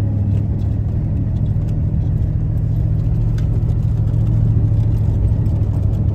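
Four-wheel-drive truck's engine running steadily at low speed, a low, even drone heard from inside the cab, with a few faint ticks over it.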